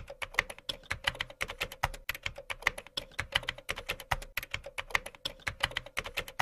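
Computer-keyboard typing sound effect: rapid keystroke clicks, about seven a second, over a faint steady hum.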